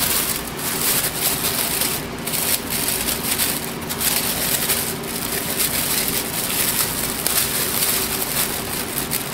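A thin clear plastic bag crinkling and crackling as hands handle it and try to open it.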